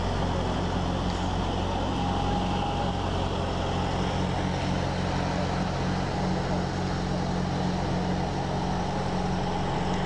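Diesel engine of a double-drum asphalt roller running with a steady, even drone as the roller works over fresh asphalt.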